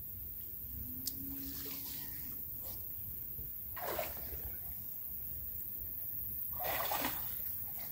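Legs wading through shallow, muddy floodwater, giving a few splashes and sloshes. The loudest come about four seconds in and again near the end.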